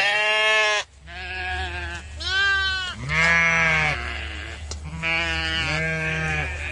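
Sheep bleating repeatedly, about five calls of differing pitch, two of them close together near the end, over a steady low rumble.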